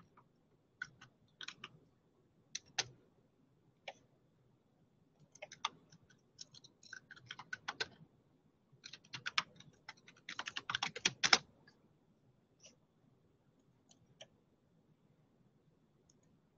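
Computer keyboard typing in short, irregular runs of keystrokes, with the densest run about ten to eleven seconds in; after that only a few scattered clicks.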